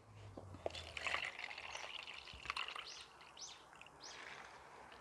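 Liquid poured from a plastic bottle into a plastic cup: a faint trickle, with a few short rising glugs near the end.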